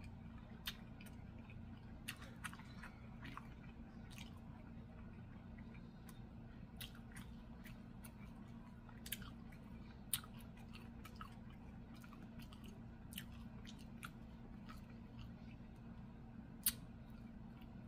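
A woman chewing food with her mouth closed, close to the microphone: faint, scattered wet clicks and smacks throughout, over a low steady hum.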